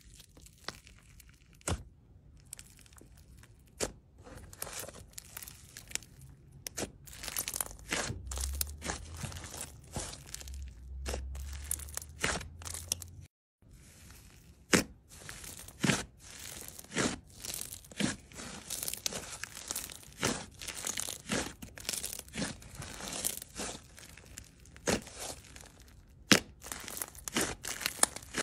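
Hands squeezing, stretching and tearing fluffy slime: irregular sticky crackles and sharp little pops. The sound drops out briefly about halfway through.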